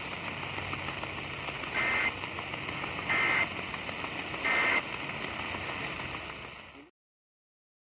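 Emergency Alert System end-of-message (EOM) data tones: three short bursts of warbling digital tone about a second and a quarter apart, over the steady hiss of the radio relay, which then cuts off abruptly to silence near the end. The bursts signal that the alert broadcast is over.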